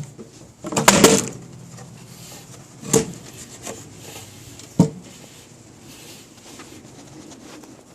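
Typewriter carrying case being handled: a loud clatter of knocks about a second in, then two single sharp knocks a couple of seconds apart.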